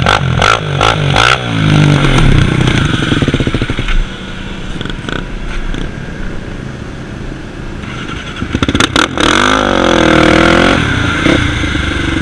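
Sport ATV engine blipped several times, then revving up hard and running on as the quad rides. The revs drop about four seconds in, rise and fall again in a burst near nine seconds, and settle toward idle near the end.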